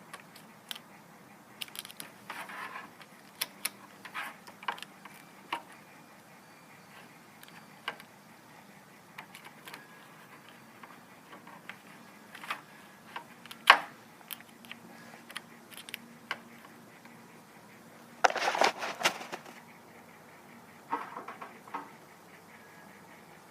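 Scattered small clicks, taps and scrapes of objects being handled, with one sharp knock about fourteen seconds in and about a second of rattling scrape a few seconds later.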